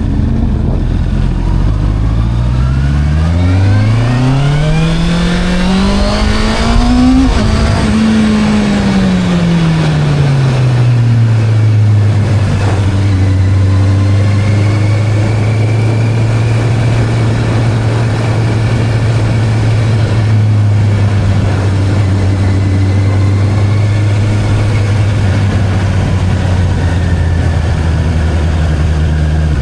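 Sport motorcycle engine pulled smoothly up through the revs for about five seconds with no gear change, eased back down, then held at a steady speed for the rest of the time.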